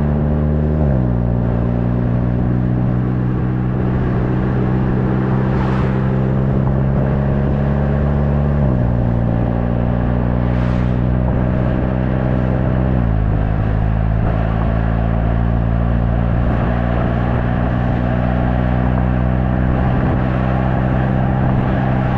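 VW Golf 7.5 GTI TCR's turbocharged 2.0-litre four-cylinder running through its stock exhaust, a steady drone at moderate revs. The pitch drops in steps three times, about a second in, near nine seconds and near thirteen seconds, as the revs fall, as with upshifts, and holds steady in between.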